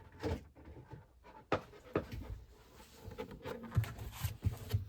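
Handling noises: scattered light knocks, taps and rustles as a small storage bin is fetched and handled, with a sharper knock about one and a half seconds in.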